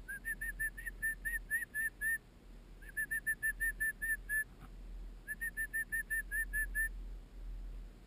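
Three runs of short whistled notes, each note rising and falling, about five a second; each run lasts under two seconds, with a pause of about a second between runs.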